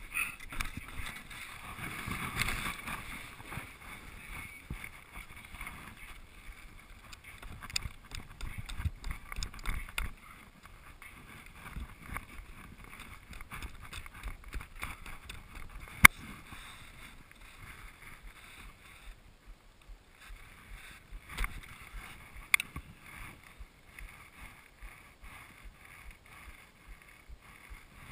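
Skis sliding and scraping over wind-crusted snow, with irregular clicks and knocks from poles and gear and wind on the microphone; one sharp click stands out about halfway through.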